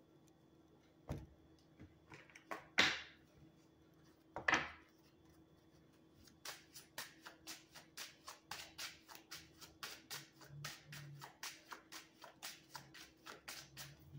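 A deck of oracle cards being shuffled by hand. There are a few separate swishes and snaps in the first five seconds, then a quick run of soft card snaps, about four a second.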